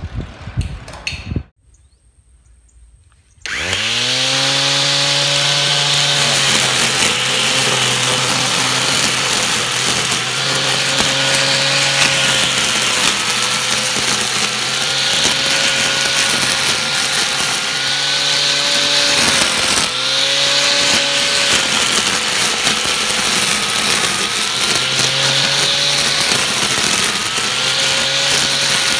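Homemade electric lawn mower built from an angle grinder, spinning its nylon trimmer line through grass: the motor starts about three and a half seconds in, winds up quickly to speed and then runs steadily with a loud whine and hiss, its pitch dipping briefly a couple of times.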